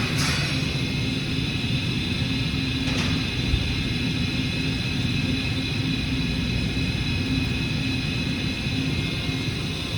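Hurco CNC milling machine running steadily: a constant hum with several steady high-pitched tones, and a faint short click about three seconds in.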